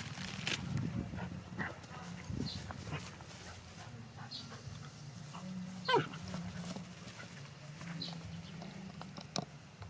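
A pet animal's short cries and small noises over a steady low hum, with one louder, quick cry rising in pitch about six seconds in.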